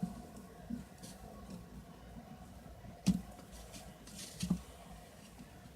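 Quiet handling noises over faint room tone: a light knock about three seconds in and a softer one about a second later.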